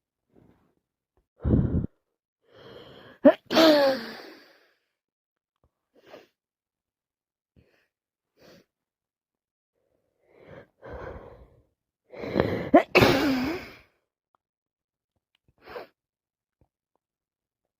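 A woman with a head cold sneezing twice, about nine seconds apart. Each sneeze has a drawn-in build-up breath and a sharp explosive release, with short sniffs between them.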